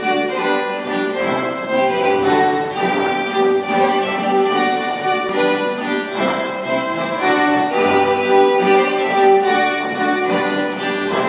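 Small baroque consort of violins and cello playing a lively dance tune with a steady pulse.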